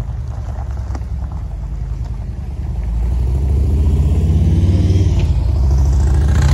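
A motor vehicle's engine running close by, a low rumble that grows louder about three seconds in.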